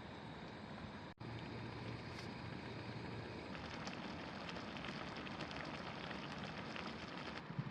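Steady wind rushing over the microphone, with a wood campfire crackling in many small sharp pops from about halfway through. The sound cuts out briefly about a second in.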